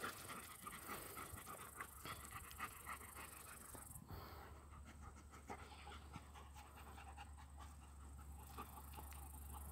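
Central Asian Shepherd dogs (Alabai) panting faintly, open-mouthed after running and playing.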